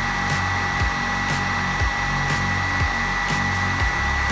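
Heat gun blowing on its low fan setting while it warms up for heat-shrinking: a steady rushing hiss with a thin high whine. Background music with a steady beat plays under it.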